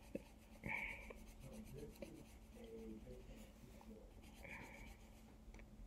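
A pen moving quietly across paper in short strokes, with a couple of sharp light clicks about a second in.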